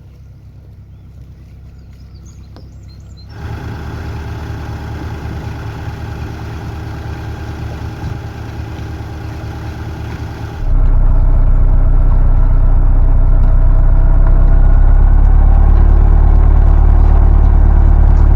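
Canal boat's engine running steadily with a low, even beat, heard in three spliced takes: fairly quiet at first, louder from about three seconds in, and much louder and deeper from about ten seconds in.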